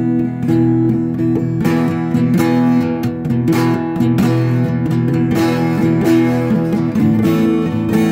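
Acoustic guitar strummed, chords ringing in a steady rhythm of strokes.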